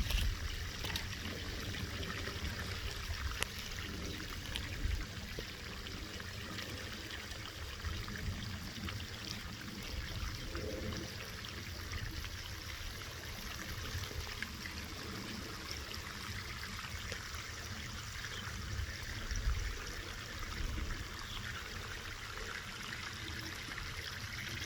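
Steady rushing, hissing noise that does not rise or fall, with irregular low rumbles underneath.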